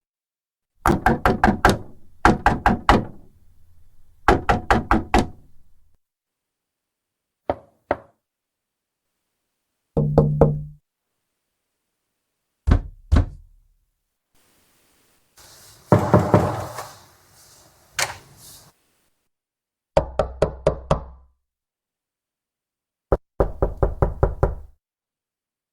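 A fist knocking on a wooden door in repeated bouts. Most bouts are quick runs of four to six knocks, a few are just one or two, and there are short silences between them.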